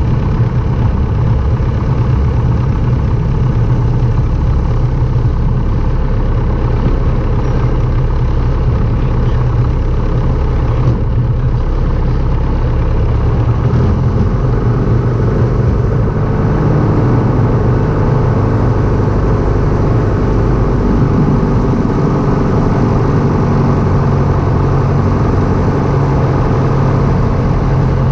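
Light aircraft engine running steadily, its note shifting slightly about halfway through.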